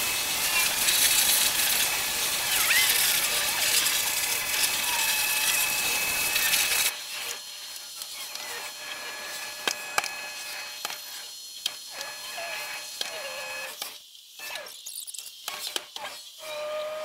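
High-pressure spray wand hissing as water is blasted onto a car, cutting off suddenly about seven seconds in; scattered light clicks and knocks follow.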